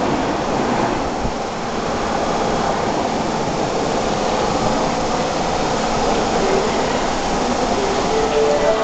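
Steady din of an underground subway platform, with a train standing at the platform and people walking past. A few steady tones begin near the end.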